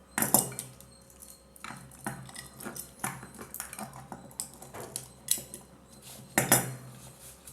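Small clicks, taps and scrapes of plastic and small metal parts being handled while a three-pin plug top is fitted to a power cable, with louder knocks near the start and about six and a half seconds in.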